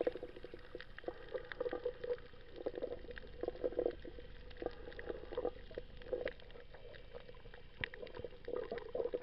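Muffled underwater sound picked up by an action camera held below the surface: irregular bubbling and gurgling with scattered sharp clicks and a faint steady hum.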